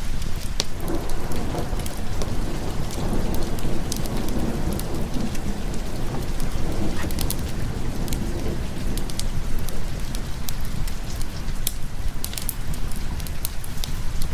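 Steady heavy rain, with a long roll of thunder that rumbles in about a second in and fades after several seconds. Sharp crackles from a wood fire are scattered throughout.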